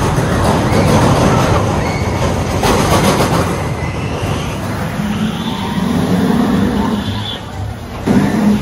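Steel roller coaster train rumbling along its track, a loud rushing roar that eases off after about seven seconds.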